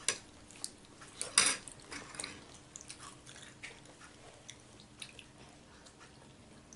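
Chewing and biting on food close to the microphone, with scattered light clinks of cutlery against a bowl; the loudest sharp sound comes about a second and a half in.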